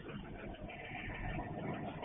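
Diesel rumble of an approaching work train, heard as a low, steady noise through a security camera's microphone, with a higher hiss joining about half a second in.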